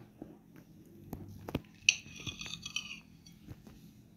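Table knife cutting through a soft slice of rice-flour bread and knocking against a ceramic plate: scattered light clicks and clinks, with a brief high scrape of the blade on the plate about two seconds in.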